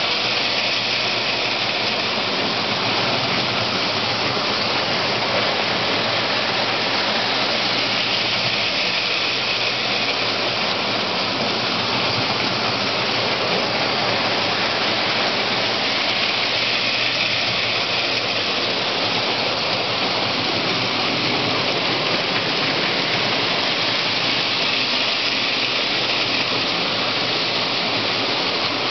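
Postwar Lionel 675 steam locomotives running on O27 tinplate track: a steady, loud rolling rattle of wheels on the tin rails over a low motor hum. It swells and fades every several seconds.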